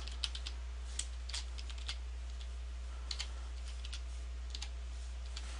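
Computer keyboard being typed on, a scattering of separate keystroke clicks at an irregular pace, over a steady low hum.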